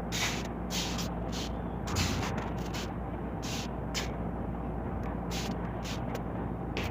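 Steady low background hum with irregular short clicks and rustles scattered through it.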